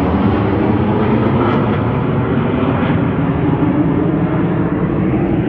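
Formation of military jet aircraft flying past overhead, their engines giving a loud, steady low rumble.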